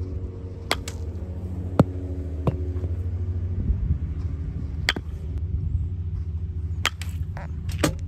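Bat hitting baseballs in a batting cage: several sharp cracks, the loudest about two seconds in and more in the second half, over a steady low machine hum.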